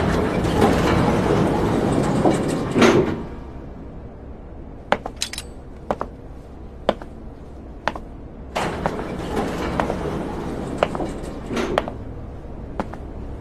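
Elevator doors sliding open with a rush of noise lasting about three seconds, then single footsteps on a hard floor, roughly one a second, with a second long rush of noise midway through.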